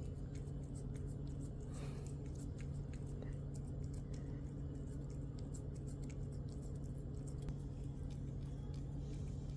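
Cat licking and gnawing at a frozen popsicle treat, a run of small wet clicks, over a steady low electrical hum.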